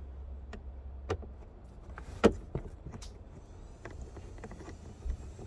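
A few sharp clicks and knocks from a screwdriver working the screws at the bottom of a car's glove box under the dashboard, the loudest a little after two seconds in, over a low steady hum.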